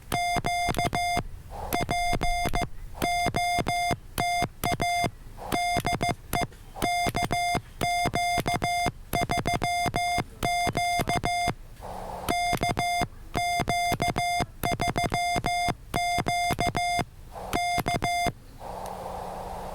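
Morse code (CW) from a ham radio transceiver: one steady mid-pitched beep keyed on and off in brisk dots and dashes, in groups with short pauses, the transceiver's sidetone as the operator sends. It stops near the end and the receiver's band hiss comes back.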